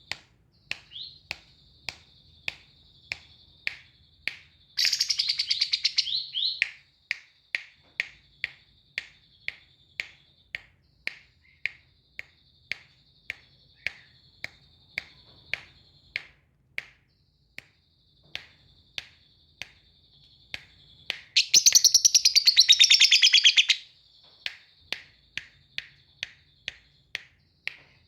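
Lovebird calling with sharp single chirps about twice a second, broken twice by loud bursts of rapid trilling chatter, the first about five seconds in and the second, longer one about twenty-one seconds in.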